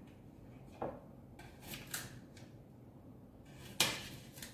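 Small knife working a garlic clove over a glass plate: a few sharp clicks of the blade on the glass, the loudest near the end, with faint scraping between them.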